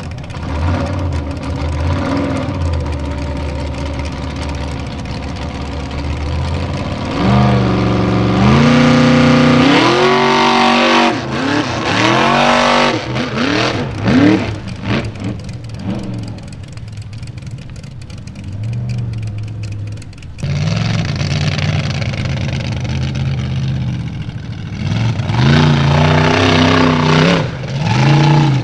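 Off-road hillclimb buggy engines revving hard in repeated bursts, the pitch rising and falling as the driver works the throttle up a steep dirt slope. It eases off to a lower, quieter run in the middle, then a loud engine cuts back in suddenly and revs hard again near the end.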